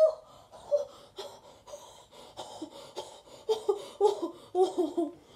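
A boy laughing in short, breathy bursts, faint at first and stronger from about two and a half seconds in.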